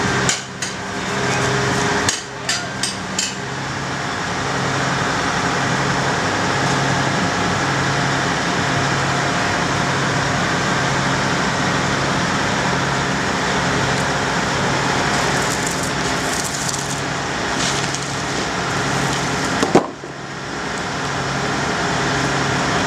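Hitachi Zaxis 700 long-reach demolition excavator travelling on its steel crawler tracks: steady diesel engine noise with a regular low pulse about once a second, and sharp metallic clanks in the first few seconds.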